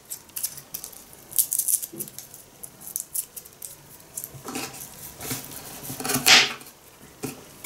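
Small garlic cloves being peeled by hand, the papery skin rustling and crackling in scattered small clicks, then a knife cutting on a wooden board, with one sharper knock about six seconds in.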